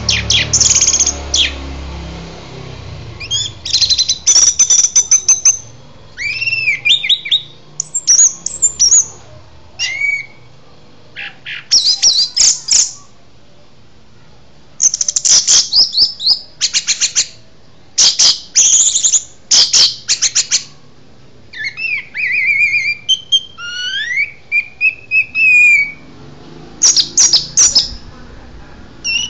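Caged songbird singing in loud phrases of rapid, repeated high notes and trills, with a few slurred whistles, broken by short pauses.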